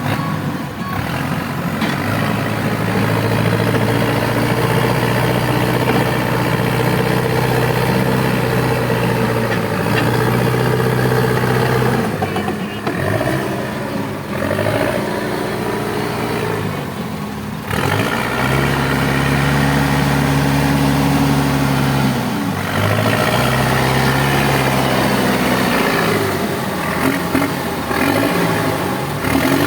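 Case 580 Super L backhoe loader's diesel engine running hard at high throttle, holding a steady note. The engine drops off briefly several times and comes back up to the same pitch.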